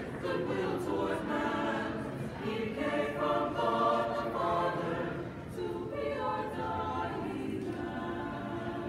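A choir of men's and women's voices singing together in harmony, holding and moving between sustained notes.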